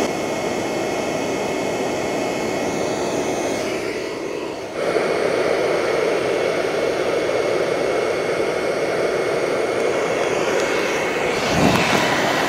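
Hair dryer used as the blower of a charcoal-briquette furnace, running steadily: a motor whine over the rush of air forced down a steel pipe into the burning can. It dips briefly about four seconds in, then comes back a little louder.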